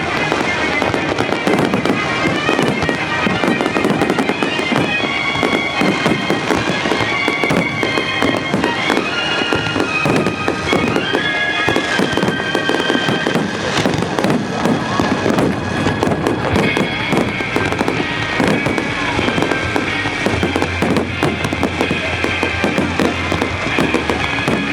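Fireworks display: a dense, continuous run of bangs and crackling shells. Music with a held, stepping melody plays over the bursts.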